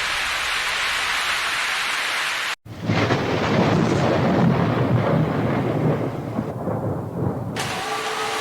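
Steady heavy rain hiss. After a brief dropout about two and a half seconds in, a louder rolling thunder rumble comes in under the rain and slowly eases off.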